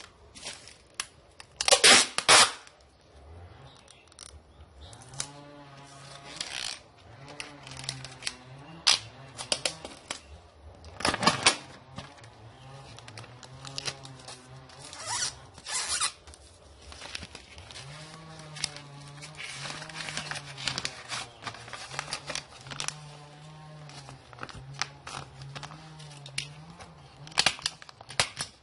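Scattered sharp clicks and rustles of small objects being handled, with a low wavering voice underneath for much of the time.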